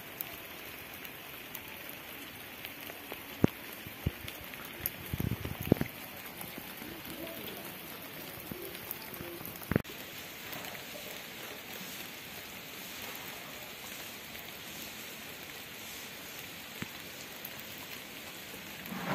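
Light rain falling on wet pavement, a steady even patter. A few sharp knocks break through it, a short cluster about five seconds in and one more about ten seconds in.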